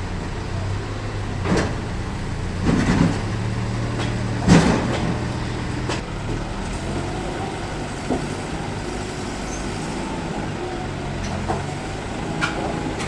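Heavy sawmill machinery running with a steady low engine hum, broken by a few knocks and clatters in the first five seconds, the loudest about four and a half seconds in, and a few lighter clicks later on.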